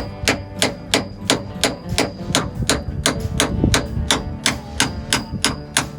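Hammer blows in a steady rhythm, about three a second, each with a short metallic ring, driving a corroded old bushing out of a Jeep door hinge.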